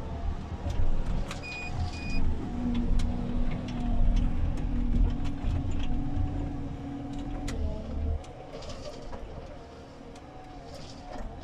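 Komatsu 931.1 harvester's diesel engine and hydraulics heard from inside the cab, working under load with a steady hydraulic whine from about two seconds in, then easing off after about eight seconds. Two short electronic beeps near the start, and scattered sharp cracks from the harvester head working in branches.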